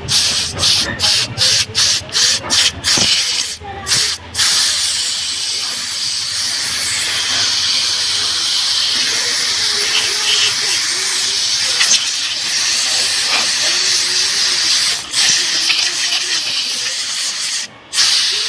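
Compressed air hissing from an air-gun nozzle as it is blown through a scooter's mesh air filter to dry and clear it after washing. It starts as a quick string of short blasts, then runs as one long continuous blast that breaks off briefly near the end.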